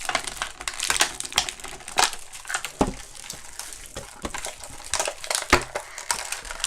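Toy packaging being handled and opened, crinkling and crackling steadily with many sharp clicks, and two louder knocks about three and five and a half seconds in.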